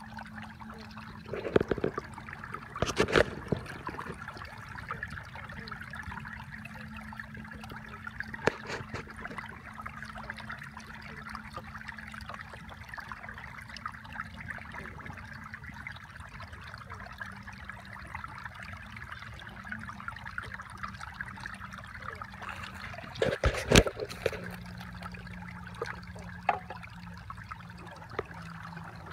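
Water trickling steadily, over a low steady hum, broken by a few sharp knocks. The loudest knocks come about a second and a half in, three seconds in, and near twenty-four seconds.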